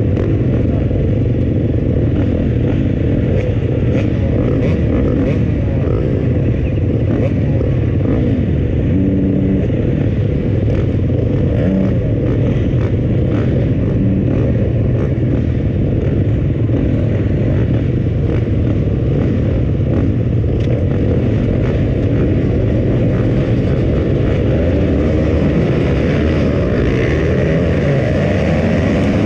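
Several motocross bike engines, among them a 2020 KTM 250 four-stroke, running and revving together on a start line. Near the end they go to hard throttle as the pack launches off the start.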